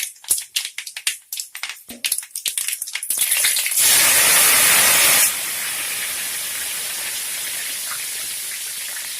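Mustard and fenugreek seeds crackling and popping in hot sesame oil in a kadai, then a loud hissing splutter as curry leaves hit the oil about four seconds in. It drops abruptly after about a second and a half to a steady sizzle that slowly fades.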